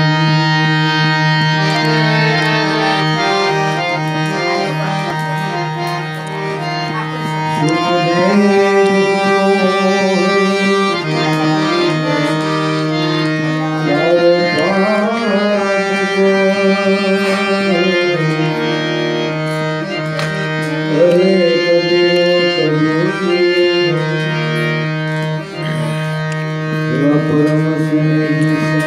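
Harmonium playing a devotional bhajan over a steady low held note, with a man singing in phrases starting about eight seconds in.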